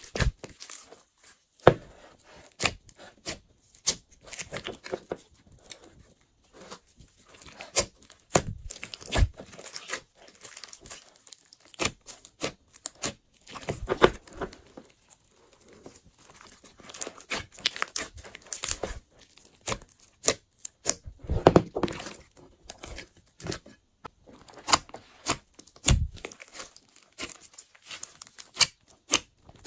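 Hands squishing and stretching glossy slime, with wet squelches and many irregular sharp clicks and pops that come in clusters.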